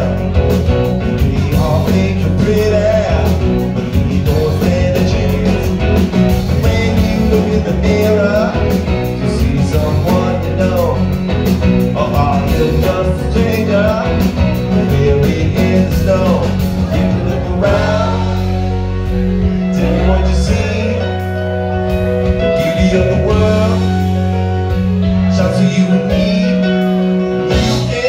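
Live band playing a rock song: drums, electric guitar and keyboards, with a singing voice. Past the halfway point the playing thins to held chords.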